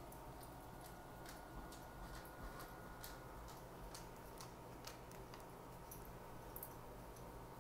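Faint, irregular light clicks and ticks, about a dozen spread over several seconds, over quiet room tone.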